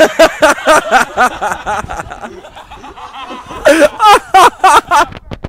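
Loud, hearty laughter in quick "ha-ha" pulses, about four or five a second, fading after about two seconds and breaking out again strongly near the end.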